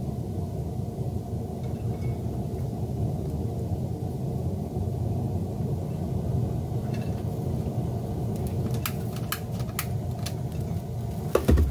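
Steady low rumble of a running Weber SmokeFire pellet grill, with a few sharp clicks about two seconds before the end as the flambé is lit.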